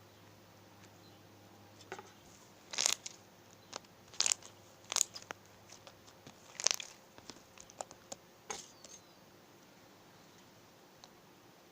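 Slime being pressed and squeezed by hand, giving a series of sharp pops and crackles, the loudest between about three and seven seconds in.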